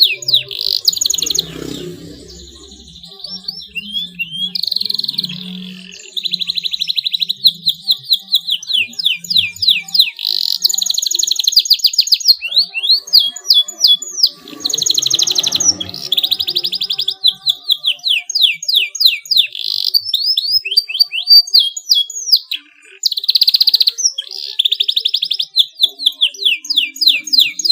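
Male domestic canary singing a long, fast song of rapid trills and rolling note series, with a short break a couple of seconds in and another late on.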